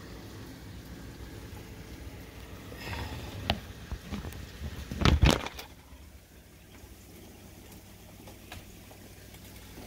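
Knocks and clatter of wooden plantation shutters being handled and opened, a short run of sharp knocks with the loudest cluster about five seconds in, over a faint steady hiss of rain.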